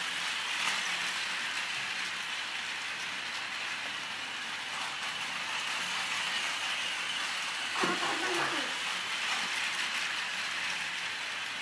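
Battery-powered Plarail toy train, an E6 Super Komachi coupled to a Hayabusa, running on its plastic track: a steady whirring from its small motor and gearbox.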